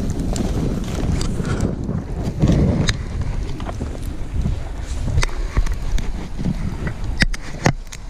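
Wind buffeting a GoPro's microphone as a snowboarder rides downhill: a steady deep rush, with the board sliding and scraping over the snow. A few sharp clicks near the end.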